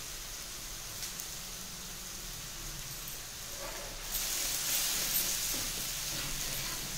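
Tomato-and-onion masala paste with turmeric sizzling in mustard oil in a kadhai. About four seconds in it is stirred with a ladle and the sizzle gets louder.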